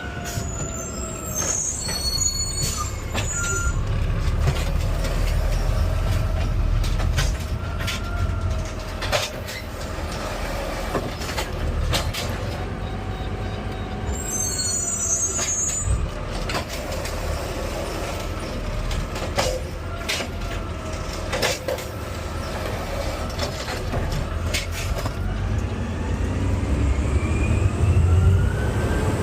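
Garbage truck running: a steady engine rumble whose pitch drifts slowly up and down, with scattered clicks and knocks. There are brief high squeals about a second in and again about fifteen seconds in, and the engine rises in pitch near the end.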